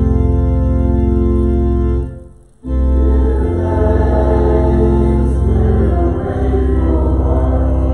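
Church organ playing sustained hymn chords. It breaks off for about half a second around two seconds in, then resumes.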